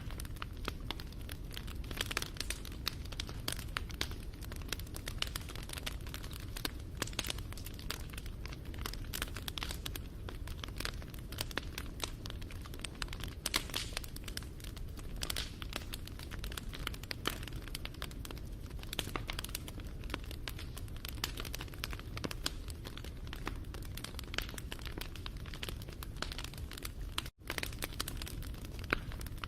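Wood fire crackling, with dense, irregular pops and snaps over a steady low rumble; the sound cuts out for an instant near the end.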